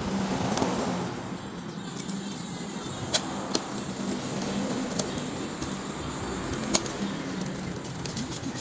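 Several sharp metal clicks as parts of a MAX stapler are handled and hooked together, over a steady low background hum.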